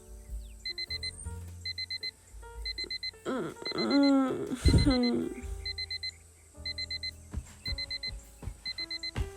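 Digital alarm clock beeping in quick groups of four, about one group every three quarters of a second, over soft background music. Around the middle a louder drawn-out sliding sound briefly rises over the beeping.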